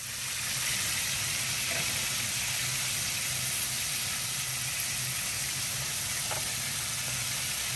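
Chicken wings frying in hot oil in a pan, a steady sizzle with a faint low hum underneath.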